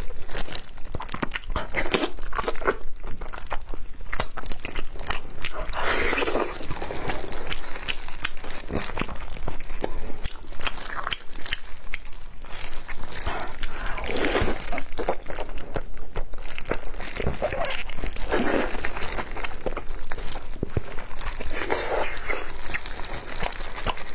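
Close-miked eating sounds: biting into and chewing braised pork hock, with meat and skin being torn from the bone by gloved hands, a steady run of sharp wet clicks and smacks.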